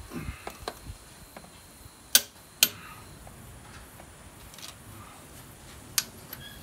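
Sharp metallic clicks from a click-type torque wrench and ratchet tightening diesel cylinder head bolts: light ratchet ticking at first, then two loud clicks about half a second apart, and one more near the end.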